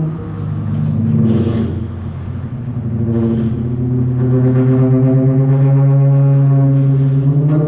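Drum feedback: sustained droning tones with stacked overtones, made by amplified drums feeding back through their heads. The pitch shifts in the first few seconds, then the drone swells about four seconds in and holds on a steady low tone.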